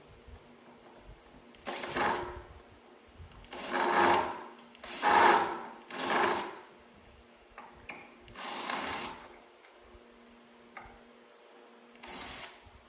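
A small handheld power tool running in six short bursts, each about half a second to a second long, with gaps between them.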